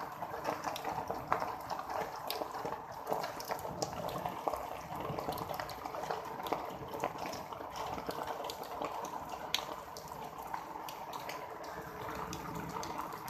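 Water bubbling and trickling steadily, with many small irregular drips and pops over a faint low hum.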